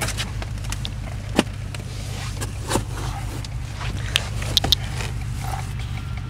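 Ford 7.3 L gasoline V8 idling steadily, heard from inside the cab as a low, even hum. A few sharp clicks sound between about one and five seconds in.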